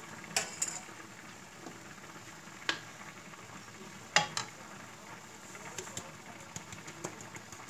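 Minced beef frying in a cast-iron skillet, a steady sizzle, with a few sharp clinks and knocks of utensils against the pans, the loudest about four seconds in.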